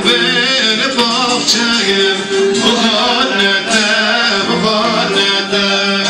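Live Turkish folk song: a man singing into a microphone, accompanied by a bağlama (long-necked saz) and an electronic keyboard.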